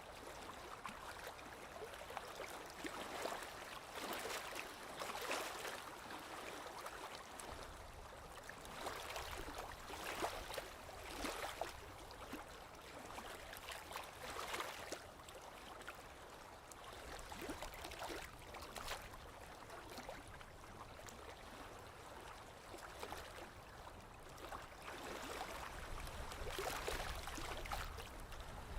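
Small lake waves lapping on the shore, gently and steadily, with irregular little splashes every second or two.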